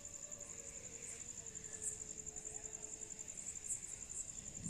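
An insect trilling: a high-pitched buzz, rapidly pulsing many times a second.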